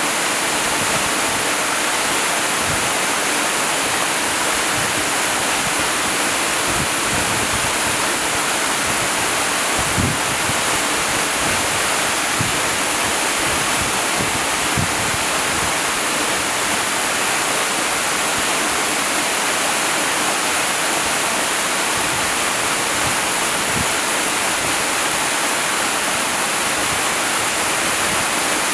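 Waterfall pouring in a steady, dense rush of falling water, with small splashes low down.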